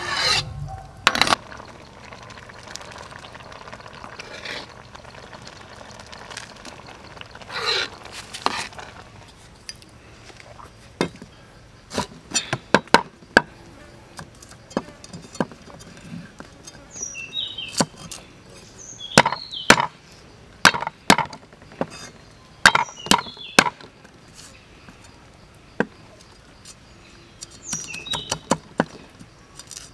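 Large knife chopping garlic cloves on a thick wooden chopping board: sharp, irregular knocks coming in short clusters, starting about eleven seconds in. At the very start, a metal ladle briefly scrapes and stirs rice porridge in a steel wok.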